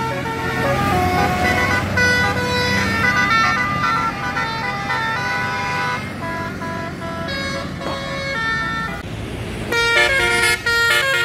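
A bus's 'telolet basuri' multi-tone musical air horn playing a tune of stepped, held notes over the bus engine running. A louder run of horn notes comes about ten seconds in.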